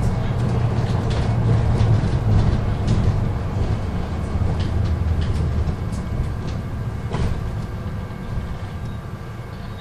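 Volvo hybrid city bus heard from inside the cabin at the front while it drives: a steady low rumble with road noise, faint steady whining tones and a few small rattles. It grows quieter over the last few seconds.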